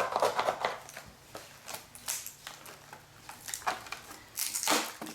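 Fine-toothed razor saw cutting through the plastic hinges of a model airplane's stabilizer, with a quick run of short strokes at the start. It is followed by scattered scrapes and knocks, with a longer scrape near the end.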